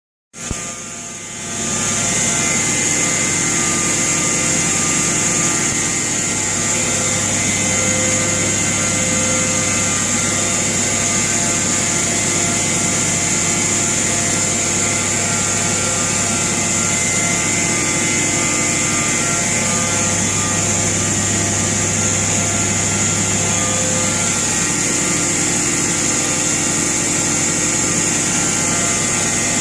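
Freshly overhauled Deutz 1015 diesel engine running steadily, with a steady high-pitched whine above the engine note. It comes up to full level within the first couple of seconds.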